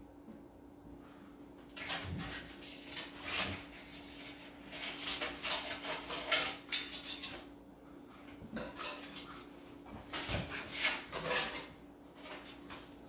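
Metal wire being wrapped and pulled tight around a thick fibre climbing rope: irregular bursts of scraping, rustling and light metallic clinking in two spells, over a faint steady hum.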